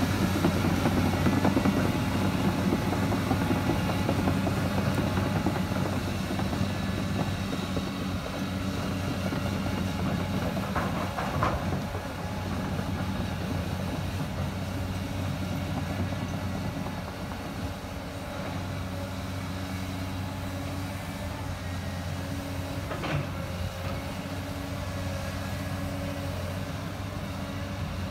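Caterpillar 320D tracked excavator's diesel engine running steadily while the machine drives on its steel tracks, growing fainter as it moves away, with a couple of sharp metallic clanks.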